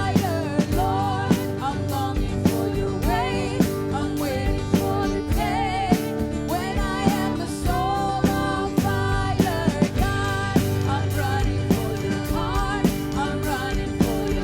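Church worship band playing a contemporary Christian song, with wavering sung melody over held chords and a steady drum beat.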